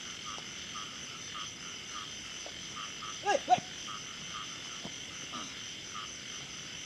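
Frogs croaking in a steady chorus, one repeating call about twice a second, over a steady high insect-like trill. A brief, louder sound with a wavering pitch stands out about halfway through.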